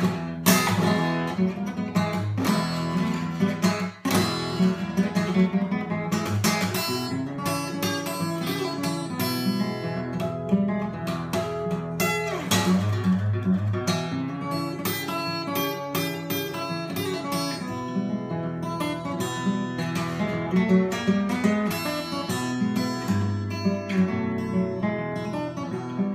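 Steel-string acoustic guitar fingerpicked solo in ragtime blues style, with steady bass notes under picked treble melody. There is a brief break in the playing about four seconds in.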